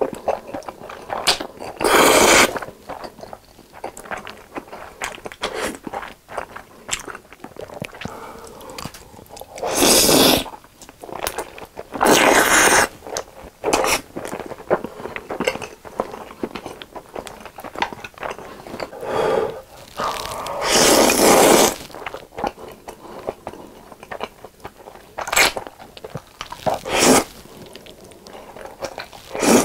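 Close-miked eating: several loud slurps of black bean noodles, each lasting up to a second or so, with wet chewing and crunching of sauced fried chicken between them.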